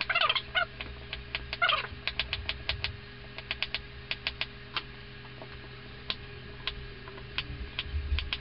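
Kitchen knife dicing a raw potato on a wooden chopping board: quick, irregular knife knocks on the board, about four a second, with two short squeaks in the first two seconds.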